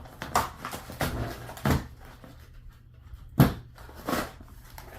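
Packaging being handled and opened by hand: a run of short knocks and rustles, the sharpest knock about three and a half seconds in.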